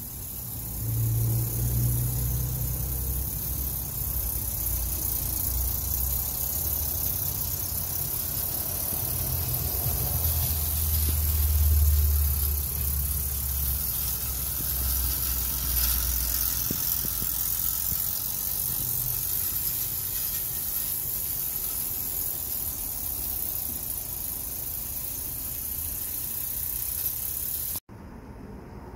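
Small live-steam vertical-boiler model locomotive running along garden track: a steady high hiss over a low rumble that swells about halfway through. The level drops suddenly near the end.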